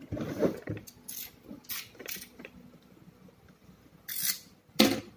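Cardboard toy box being handled and opened: a series of short rubbing and scraping strokes of cardboard sliding against cardboard and hands, with a louder knock near the end.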